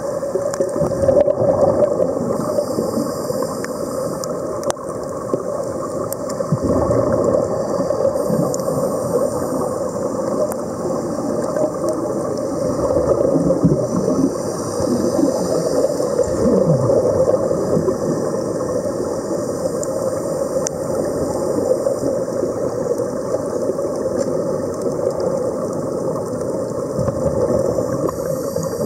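Underwater noise picked up by a submerged camera: a steady muffled rumble and gurgling of air bubbles, with a constant hum underneath.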